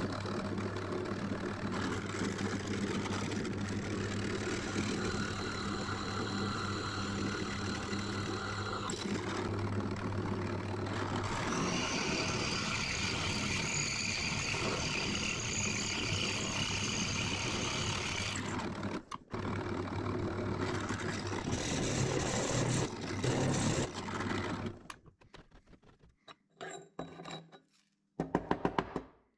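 Drill press motor running with a steady hum while the bit drills through steel bracket stock, with a high-pitched cutting squeal from about twelve to eighteen seconds in. The motor shuts off near the end, followed by a few short metallic clatters.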